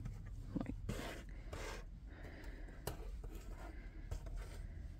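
Small diamond-painting hummingbird pieces being slid across and set down on a tabletop by hand: faint scrapes and a few light taps.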